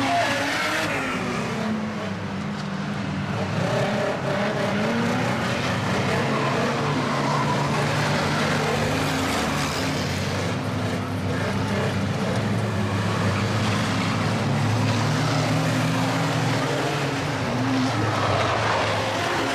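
Several banger-racing vans' engines running and revving together as the vans race around an oval track, their pitch rising and falling.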